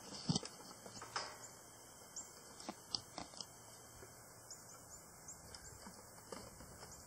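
Goat hooves knocking irregularly on a wooden plank bridge, the loudest knock just after the start, with faint short bird chirps behind.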